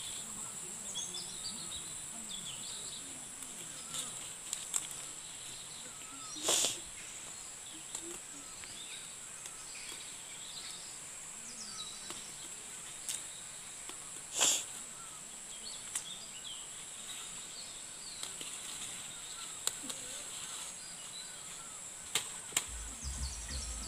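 A steady, high-pitched insect chorus with faint bird chirps, broken twice by a short, louder rustling snap as leafy greens are picked by hand, about six and a half and fourteen and a half seconds in.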